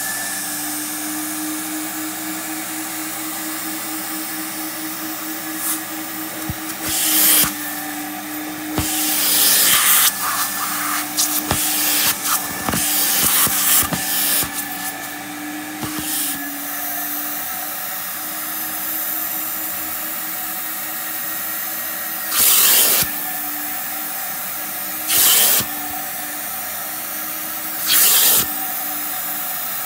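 Carpet extractor's vacuum motor running steadily while its clear hand upholstery tool works a couch cushion, with loud hissing rushes through the tool several times: a rough stretch in the middle and three short ones near the end.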